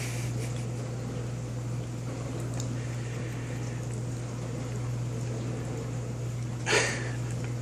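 A corgi puppy licking peanut butter from its mouth with faint wet smacks, over a low steady hum. A short burst of noise sounds once, near the end.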